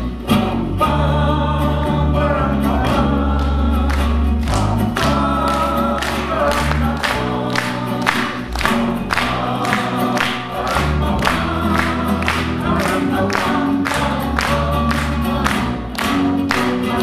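Live acoustic band: acoustic guitars strummed in a steady rhythm over a bass guitar line, with several voices singing together.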